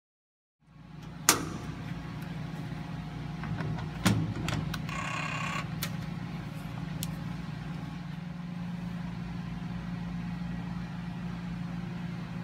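A steady low electrical hum from motor-control-center switchgear. Over it, the sharp clicks, knock and brief scrape of a portable racking head being handled and fitted against the steel bucket door.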